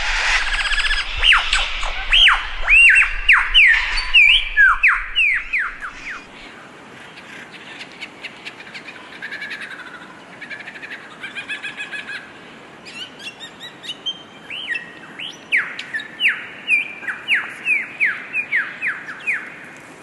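A bird singing: fast runs of whistled notes that each sweep sharply downward in pitch. A first run comes over the first few seconds, softer chirps and trills in the middle, and a second run near the end.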